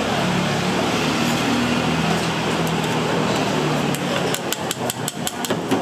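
Restaurant background noise, steady, with a quick run of about ten sharp knocks starting about four seconds in and lasting about a second and a half.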